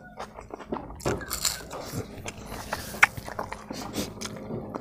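Close-miked bites and crunchy chewing as a fried dry king chilli is eaten, with many small crackles and one sharp crack about three seconds in.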